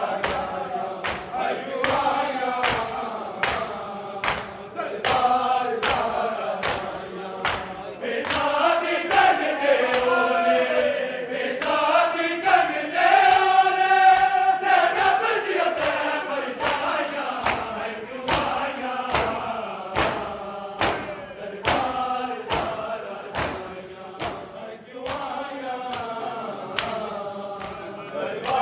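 A group of men chanting a noha in unison, with sharp rhythmic thuds about one and a half times a second, typical of chest-beating (matam) in time with the chant.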